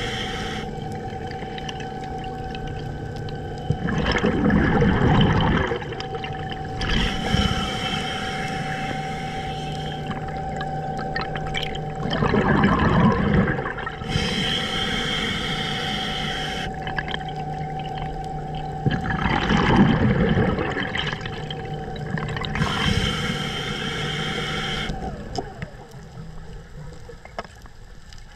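Scuba diver breathing through a regulator underwater: a hissing inhale, then a rush of exhaled bubbles a few seconds later, in a cycle that repeats about every seven to eight seconds with three bubble exhalations, over a steady hum.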